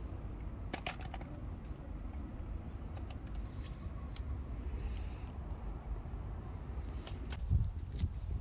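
Steady low outdoor rumble with a few faint light clicks.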